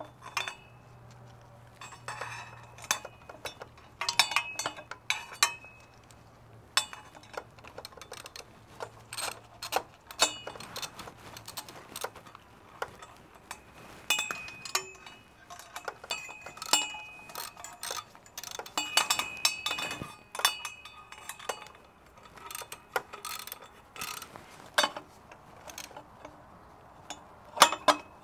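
Metal tools and exhaust parts clinking and knocking in irregular handling, some strikes ringing briefly, during hand work fitting motorcycle exhaust header pipes.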